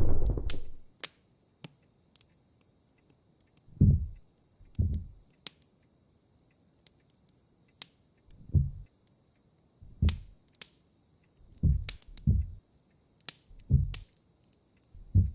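A low rumble of thunder fading out in the first second, then dull low thuds, singly or in pairs, every second or two, with sharp short clicks scattered among them.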